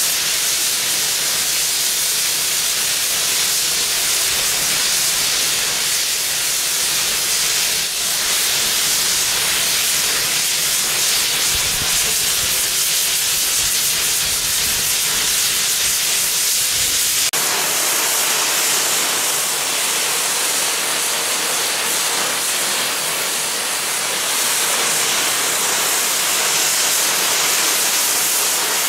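Steam hissing steadily from the standing West Country class Pacific steam locomotive 34046 Braunton. The hiss changes character abruptly a little over halfway through.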